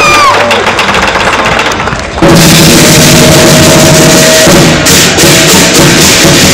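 Crowd cheering and clapping. About two seconds in, a lion dance percussion band starts abruptly and plays loud and steady on a big drum, hand cymbals and gongs.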